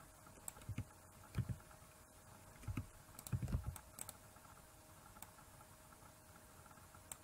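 Computer keyboard keys tapped a few times at irregular intervals as short clicks and soft thumps, bunched together about three and a half seconds in, over a faint steady hum.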